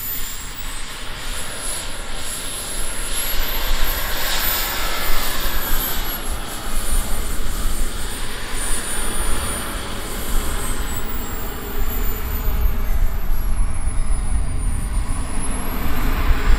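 Radio-controlled model jet's turbine engine whining while it taxis, the high whine sliding up and down in pitch as the throttle changes. A low rumble grows near the end.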